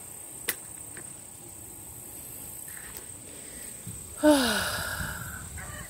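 A chicken gives one loud call about four seconds in. The call falls in pitch and trails off over about a second.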